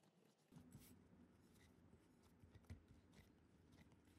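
Near silence, with faint rubbing and a few soft scattered taps from hands kneading pryanik dough in a glass bowl.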